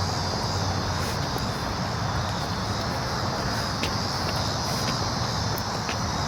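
Cicadas buzzing in a steady, unbroken high chorus, over a steady low rumble.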